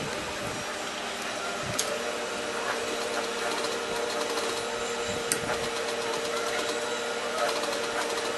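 Sewing machine running steadily, stitching through denim, with a sharp click about two seconds in and another a little past five seconds.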